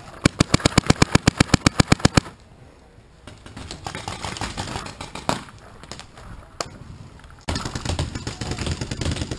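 Paintball marker firing a rapid string of about twenty shots, roughly ten a second, for about two seconds. Rustling movement noise follows, louder near the end.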